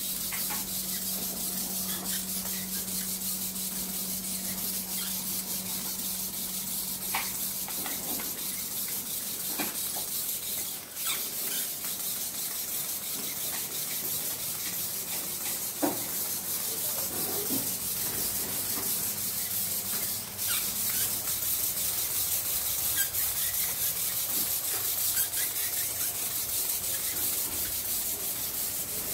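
Arduino quadruped spider robot walking: a steady whirring rasp from its leg servos, with scattered light clicks of its feet on the tile floor.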